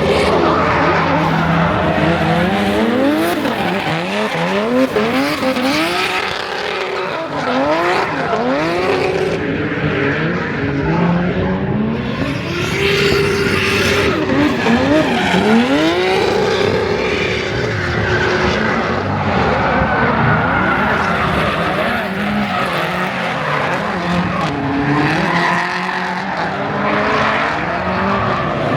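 Drift cars' engines revving hard, the pitch climbing and dropping again and again and held high for a few seconds near the middle, over the noise of tyres squealing as the cars slide.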